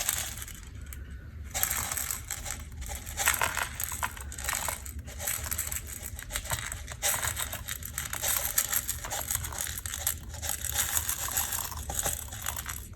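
Irregular crinkling and light clicking as small crystals and contact paper are handled, over a steady low hum.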